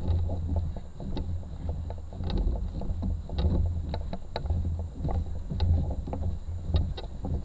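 A canoe being carried overland, its hull and the gear inside knocking and rattling as it sways, with irregular low thumps and scattered sharp clicks.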